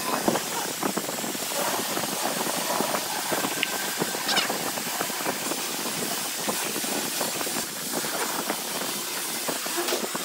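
Small wooden clicks and knocks of a handmade wooden cigarette box being worked by hand, its side pin pushed and its tray sliding, over a steady hiss.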